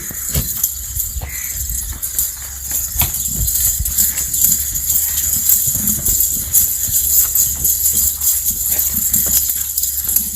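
Goats moving about in their pen, hooves knocking and shuffling irregularly over a steady low hum.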